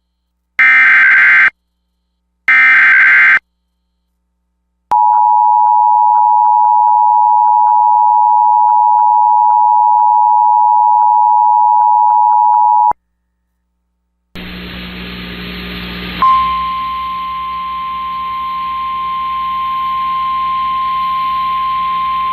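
Emergency Alert System tones: two short bursts of the screeching digital SAME data header, then about eight seconds of the steady two-tone attention signal. After a brief silence, hiss and hum come in, and a single steady tone starts over them about sixteen seconds in.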